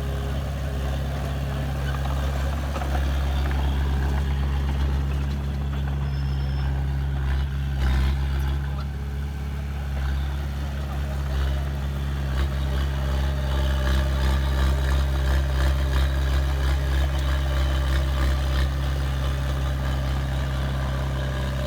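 Heavy diesel engine of earthmoving machinery running steadily with a low drone, a little louder in the second half.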